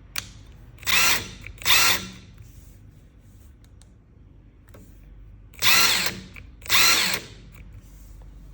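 Makita DTW700 (XTW18) 18V cordless impact wrench fired in four short bursts, two pairs a few seconds apart, its motor whine rising at each trigger pull.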